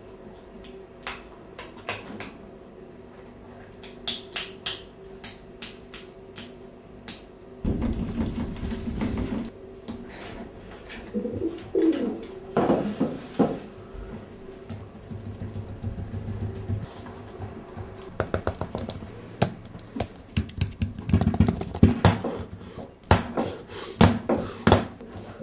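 Small packaging being picked at and worked by hand: a long run of sharp clicks and crinkles. A burst of rustling comes about eight seconds in, and the clicking thickens again in the second half.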